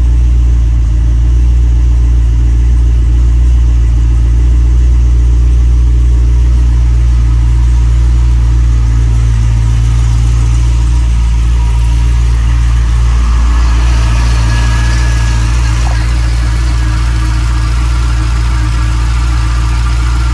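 Supercharged LSA V8 in a 1950 Chevrolet Deluxe idling steadily at about 870 rpm, just after a fuel pressure fix. More whir and hiss come in from about two-thirds of the way through.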